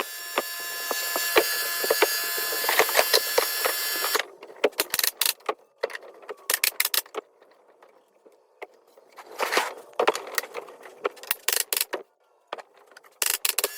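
Power saw cutting cedar board for about four seconds, then knocks and clatter of wood being handled, with a short burst of noise near the middle and cutting starting again at the end.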